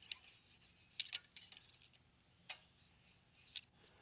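Faint, scattered metal clicks and light scraping: a steel feeler gauge blade being worked between the rocker arm and the exhaust valve stem of a Kohler Courage SV725 V-twin to check the valve clearance.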